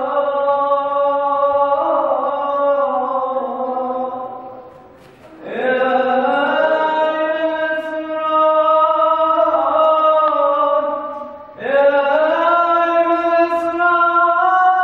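A man singing solo in Arabic with no accompaniment, in long held, ornamented notes that slide and waver in pitch. He breaks twice for breath, about five seconds in and again near twelve seconds.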